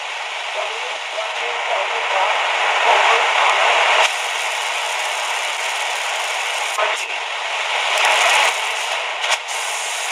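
Static hissing from the QFX R-39 portable radio's small speaker as it is tuned across a nearly empty shortwave band, swelling louder twice. It is broken by a few short crackles, a sign of weak night-time reception with no station coming in.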